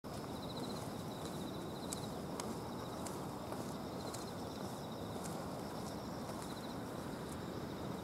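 Insects chirping in short repeated trills over a steady low background noise, with faint clicks now and then.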